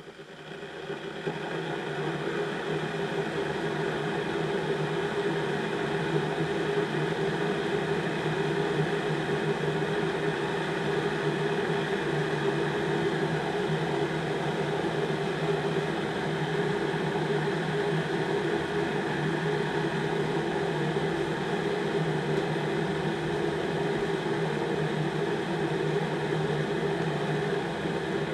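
Instant Pot Zen 1.5 L electric kettle heating already-hot water on quick boil: a steady rushing hiss and hum of water working up toward the boil, swelling over the first couple of seconds and then holding.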